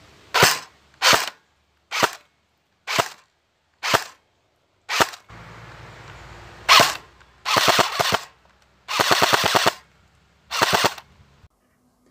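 Cyma M4 airsoft gun firing: six single shots on semi-auto about a second apart, then one more single shot and three rapid bursts, the longest close to a second.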